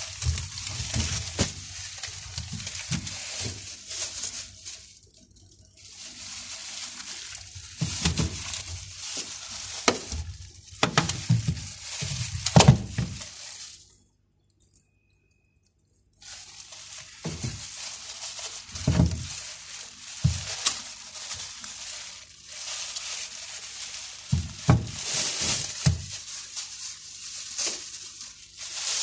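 Things being handled and moved about: irregular knocks, clinks and rustling hiss, broken by about two seconds of silence around the middle.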